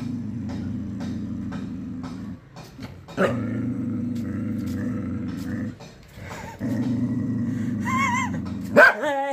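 Small white dog growling low in three long, rough stretches with short pauses between them, then a short high-pitched yip near the end.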